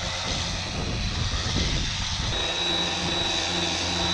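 Electric power sander running steadily with a high motor whine as it sands epoxy filler on the underside of a yacht's keel bulb.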